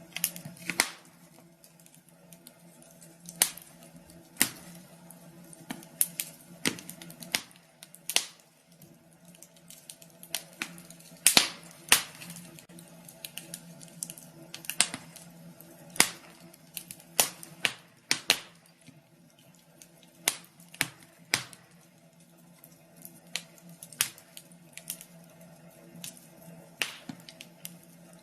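Wood fire in a fireplace crackling: irregular sharp pops and snaps, a few louder than the rest, over a low steady hum.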